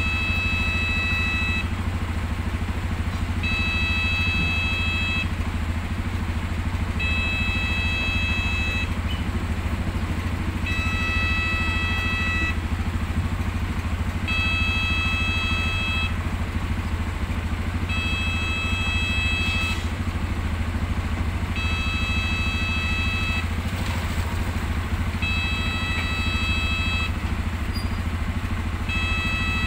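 Railway level-crossing warning signal sounding: an electronic tone of several pitches, on for just under two seconds and off for about as long, repeating about every three and a half seconds over a steady low rumble.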